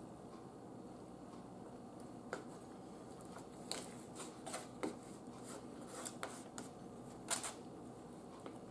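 Metal fork scraping and tapping on a paper plate as food is cut and moved: a scatter of short, quiet scrapes and clicks, the sharpest one near the end.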